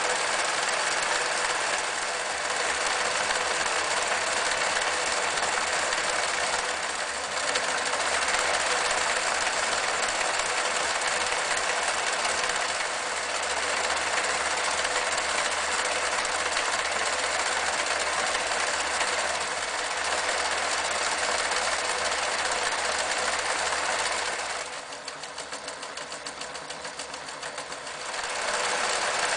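Riccar 8600 electric sewing machine running and stitching steadily, the motor and needle mechanism making a fast even chatter that eases briefly a few times. Near the end it runs quieter for a few seconds, with the separate stitch strokes coming through as a quick rhythm before it speeds up again.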